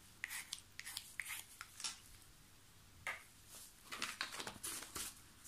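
A stirring stick scraping and tapping in a mixing cup of epoxy resin tinted with pigment powder: a scatter of light clicks and scrapes, busiest early and again in the last couple of seconds.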